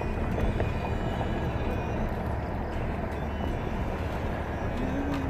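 Steady road noise inside a moving car: a low rumble of tyres and engine with air rushing in through a partly open side window.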